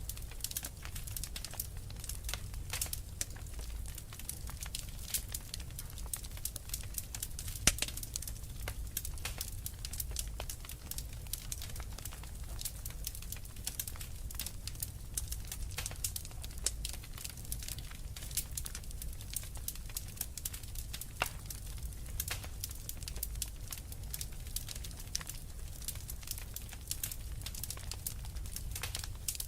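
Fireplace fire crackling and popping steadily, with a low rumble underneath and one sharper pop about a quarter of the way through.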